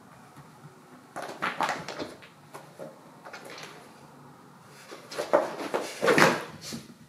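A cat scuffling at a rubber yoga mat, with rustling and bumping as it paws and rumples the mat. The sounds come in two bouts: one about a second in and a louder one between about five and six and a half seconds.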